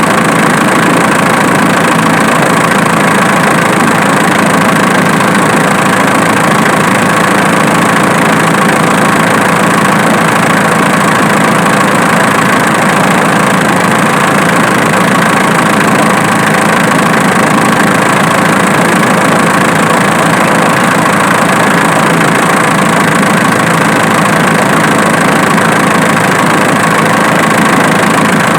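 Diesel engine idling steadily, with a snapping noise that is traced to the alternator rather than the injection pump.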